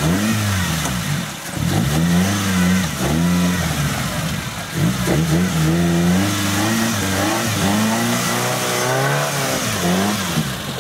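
Engine of a small Suzuki Samurai 4x4 revving up and down again and again as it is driven through a deep mud rut, the pitch rising and falling about once a second.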